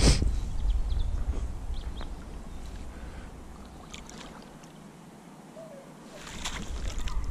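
Landing net being moved through shallow water at the bank and lifted out, with water sloshing and splashing, louder near the end as the mesh comes up. There is a sharp knock right at the start and a low rumble over the first few seconds.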